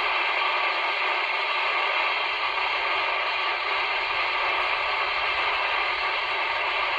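CB radio speaker giving out steady static hiss with no voice in it: the 27 MHz channel is open and no one is transmitting.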